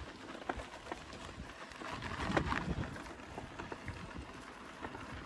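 Loaded touring bicycle rolling over a rutted dirt track: tyre crunch on dry dirt with many small irregular knocks and rattles from the bike and its bags. It gets bumpier and louder about two seconds in.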